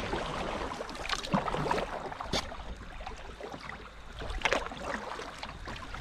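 Kayak paddle strokes splashing in calm river water, with sharper splashes about a second, two and a half and four and a half seconds in.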